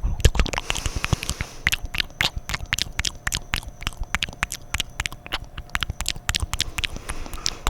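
Fast, wet mouth sounds made close to the microphone: a dense, rapid stream of tongue clicks and lip smacks.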